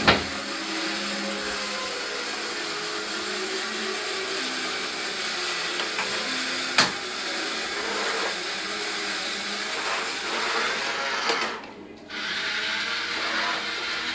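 Small electric motor and plastic gears of a wired remote-control Paya toy Pegaso dump truck whirring steadily as it drives. The whirring cuts out for a moment near the end and starts again; there is a sharp knock at the start and another about halfway through.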